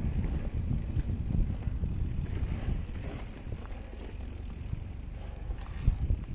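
Electric mountain bike riding over a dirt singletrack: a continuous uneven rumble of tyres and frame over the bumpy trail, with scattered rattles and a sharp knock about six seconds in.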